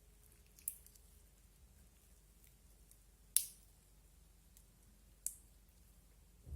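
Slime being played with, giving three sharp, crisp clicks or pops spaced a couple of seconds apart.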